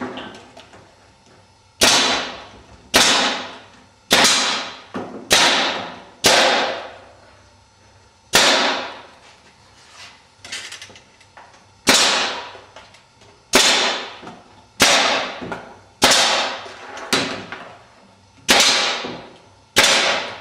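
Pneumatic staple gun firing about a dozen times, one sharp shot every second or so with a longer pause midway, driving staples that fasten glued webs to the sides of a wooden wing spar.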